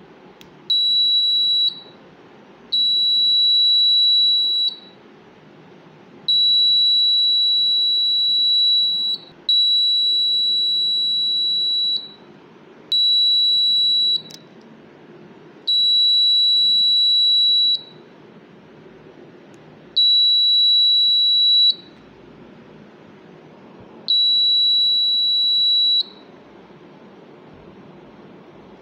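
Buzzer of a homemade door alarm sounding a single high, steady beep, switching on and off eight times in bursts of uneven length, from about one to three seconds each.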